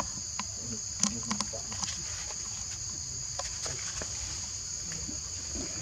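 Steady high-pitched drone of forest insects, with a cluster of sharp clicks and taps about a second in.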